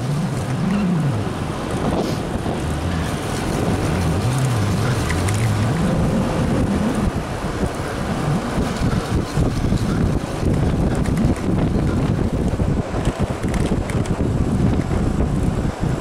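Steady wind rushing and buffeting on the microphone of a camera riding on a road bicycle at speed.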